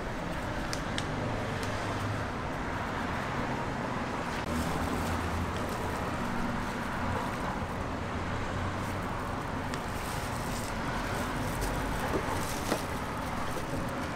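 Steady street background noise with passing traffic, and a few light clicks and taps over it.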